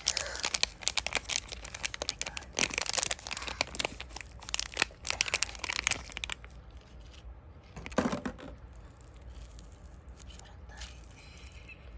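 Plastic toy packaging being torn open and crinkled: a quick run of tearing and rustling for about six seconds, then one short rustle about eight seconds in and quieter handling.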